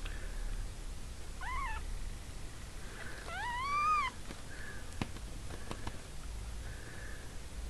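Two-day-old kittens mewing: a short thin mew, then a longer one that rises and holds.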